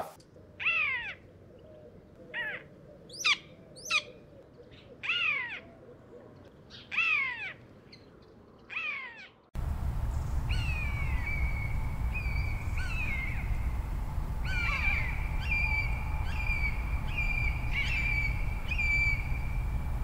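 Common buzzard calls from adult and young birds. First comes a series of about seven mewing calls, each falling in pitch. After an abrupt cut about halfway through, flatter, higher, drawn-out calls repeat roughly once a second over a steady low rumble.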